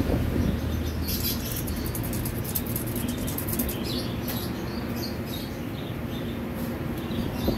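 Arc welding on a cracked steel motorcycle frame: the arc crackles in irregular spurts, thickest in the first half and again near the end, over a steady low hum.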